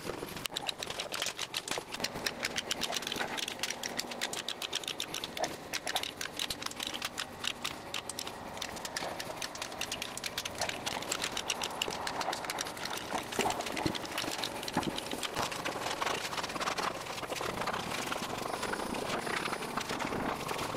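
Caulking gun dispensing construction adhesive onto plywood: a rapid run of sharp clicks through the first half, thinning out about halfway through into softer scraping as the adhesive is spread across the board.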